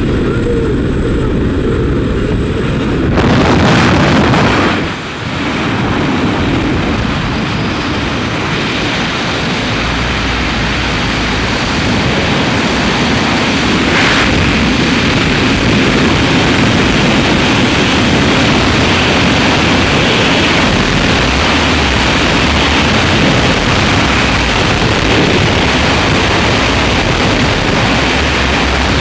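Loud, steady rush of wind noise buffeting the microphone. It grows fuller about three seconds in and dips briefly a couple of seconds later.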